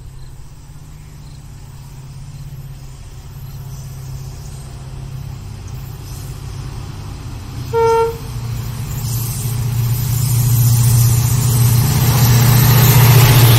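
WDP-4D diesel-electric locomotive approaching, its EMD 16-cylinder two-stroke engine humming low and growing steadily louder. It gives one short horn blast about eight seconds in, and wheel and rail noise builds as it draws near.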